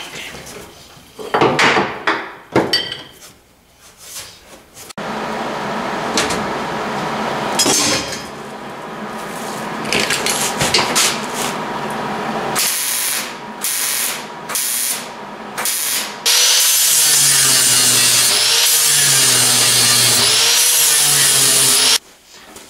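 Steel fabrication on a cabinet frame: a few sharp knocks on metal, then MIG welding, first a steady run of several seconds and then a string of short tack-weld bursts. A loud, steady power-tool noise fills the last several seconds.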